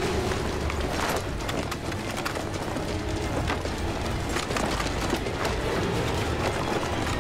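Film soundtrack: a low rumbling music bed with a faint held tone, and irregular knocks scattered through it.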